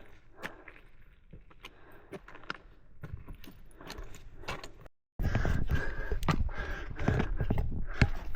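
Footsteps, scuffs and knocks on rock with light clinking, as a hiker climbs a steep rocky slope. About five seconds in the sound cuts out briefly, then the same clatter comes back louder and closer over a low rumble.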